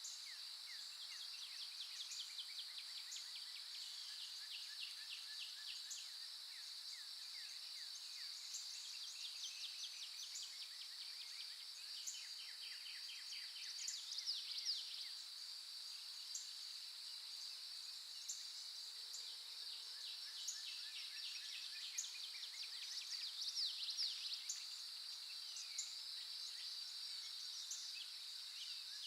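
Forest morning ambience: a steady, high insect drone, with birds singing over it in repeated quick, falling trills and chirps that swell louder a couple of times.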